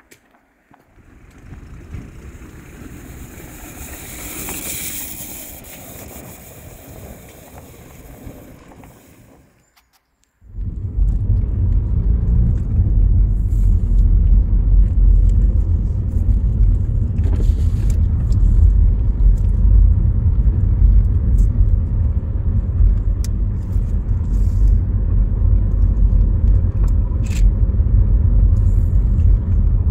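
Car driving on the road: a steady, loud low rumble of engine and tyre noise, starting abruptly about ten seconds in after a brief gap. Before the gap there is a quieter stretch of hiss that swells and fades. A few short clicks sit on top of the rumble.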